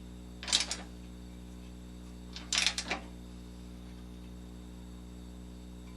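A socket ratchet clicking in two short spurts while tightening 9/16 bolts on a skid plate, about half a second in and again about two and a half seconds in, over a steady low hum.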